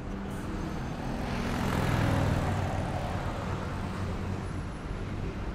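Street traffic, with one vehicle passing close: the noise swells to its loudest about two seconds in, then fades back to the steady traffic hum.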